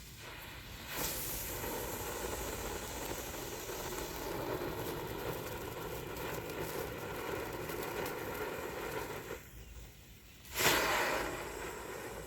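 Brothers Fireworks 'Globe' spinning firework fountain hissing steadily as it sprays sparks, starting suddenly about a second in. It drops away for about a second, then the next effect ignites near the end with a louder burst of hissing that fades.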